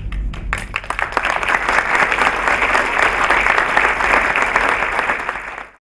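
Audience applauding: a few scattered claps at first, swelling into full applause within about a second and a half, then cut off abruptly near the end.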